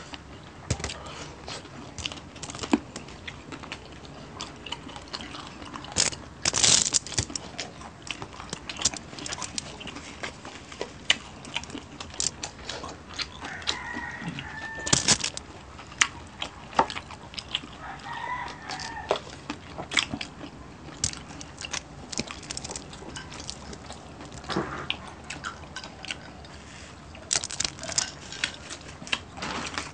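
Close-miked eating sounds: scattered crunches, clicks and chewing as crispy sisig and fried fish are eaten by hand. A rooster crows twice in the background, about halfway through and again a few seconds later.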